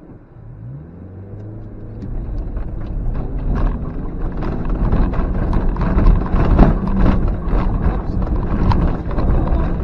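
Suzuki X-90's 1.6-litre four-cylinder petrol engine revving up as the car pulls away onto a rough, rutted track. From about two seconds in, repeated knocks and clatter as the suspension and body jolt over the bumps and stones, getting louder as the car climbs.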